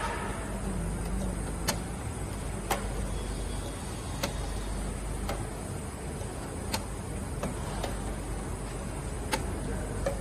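Automatic bottle filling and capping line running: a steady machine hum with sharp clicks roughly once a second as the line cycles.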